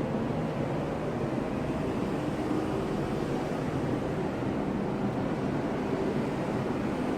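Washing machine running with a steady hum, unchanging throughout.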